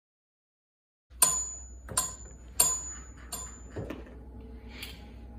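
Four sharp metallic clinks about two-thirds of a second apart, each with a brief high ring, starting about a second in over a steady low hum: a Persian cat batting a floor lamp's metal pull chain against its brass pole.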